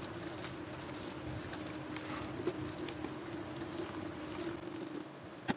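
Wooden masher working softened boiled rice in an aluminium pot: soft scraping and mashing strokes with scattered small clicks over a steady rushing hum. A few sharp knocks of the wood against the pot come right at the end.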